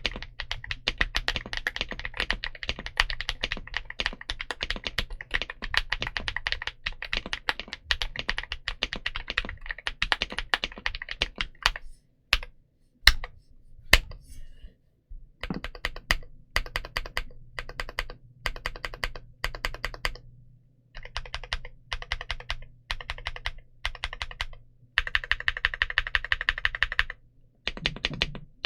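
Mechanical keyboard with clicky frankenswitches built on a click-jacket stem, being typed on: a steady run of typing, then a few single key presses about halfway through, then repeated quick bursts of rapid key strikes.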